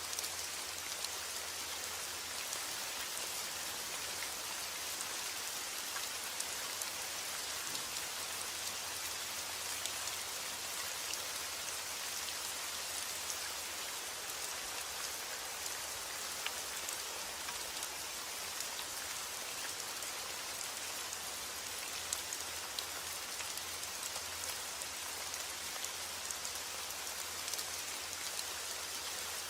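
Steady rain falling, a dense even hiss of rain with many small drop ticks scattered through it.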